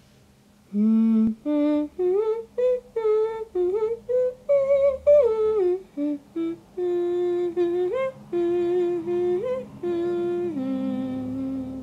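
A person humming a melody note by note, in short phrases with brief pauses, over a faint steady low drone.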